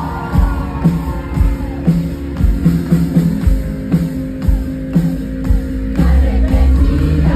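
Live concert music played loud over a PA: a steady beat of about two low drum hits a second with bass and sustained keyboard tones, and a singer's voice at times.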